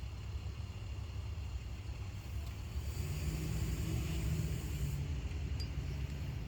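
Low steady rumble with a car's engine hum passing, swelling about halfway through and easing near the end.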